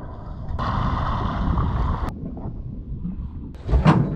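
Wind buffeting the microphone on a boat at sea, a steady low rumble, with a patch of hiss that starts and stops abruptly in the first half and a louder gust or bump near the end.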